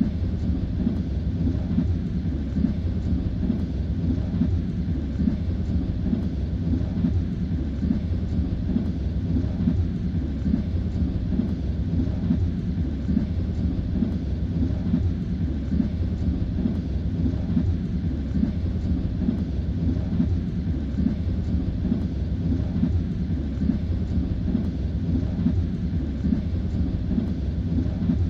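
Passenger train running at speed, heard from inside the carriage: a steady low rumble with the rhythmic knocking of the wheels over the rail joints.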